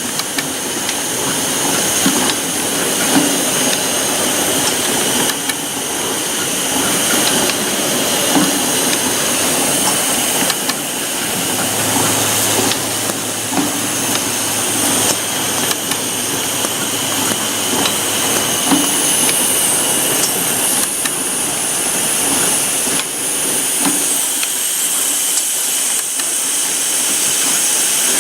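Automatic T.C.T saw-blade tip welding machine running: a steady mechanical hiss and high whine with short clicks about every two to three seconds as it works tooth by tooth, and a low hum that comes in for several seconds midway.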